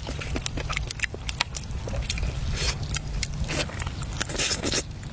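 A person chewing food close up, with many quick wet clicks and smacks of the mouth.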